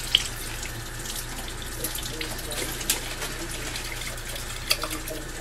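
Water bubbling in a pot on the stove at a rolling boil, with a few light clicks or knocks.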